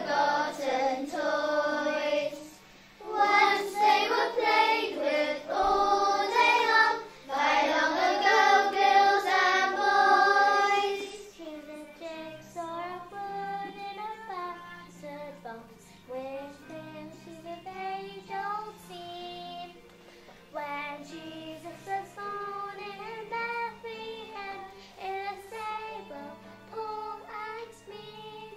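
Young children singing a Christmas song over a musical accompaniment. The singing is loud for roughly the first eleven seconds, then the song drops to a quieter passage.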